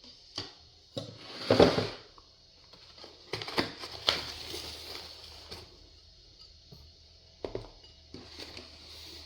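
Handling noises on a tabletop: scattered clicks and light knocks of dishes being moved, with a louder scraping rustle about a second and a half in.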